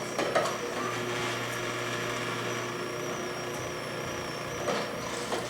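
Greenstar twin-gear masticating juicer running steadily, its motor humming evenly while it presses oranges.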